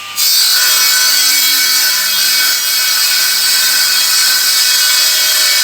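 Angle grinder running under load, cutting or grinding: a loud, steady high-pitched whine over hiss that starts abruptly just after the beginning.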